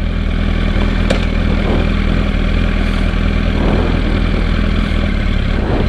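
Yamaha YZF-R1's inline-four engine running at a steady engine speed, its note holding level, with a single light click about a second in.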